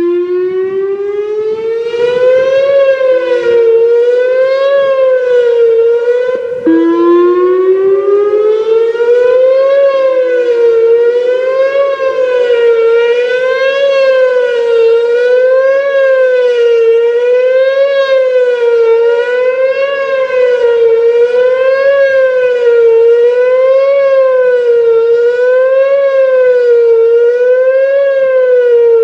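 Whelen WPS-2910 electronic outdoor warning siren sounding the Attack signal. It comes on with a rising tone, then wavers up and down about once every two seconds, with a brief break about six and a half seconds in.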